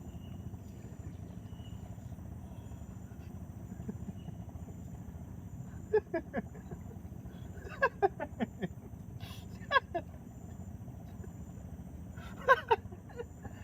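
An animal calling in short quick notes that fall in pitch, in groups of three or four, four times, over a steady low outdoor background noise.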